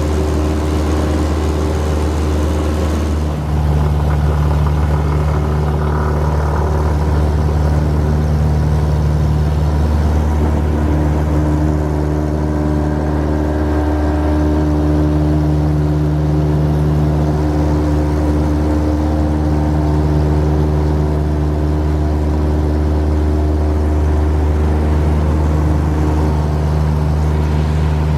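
Cessna 172's four-cylinder piston engine and propeller droning steadily, heard from inside the cabin. About three seconds in the drone steps up slightly and takes on a new steady tone.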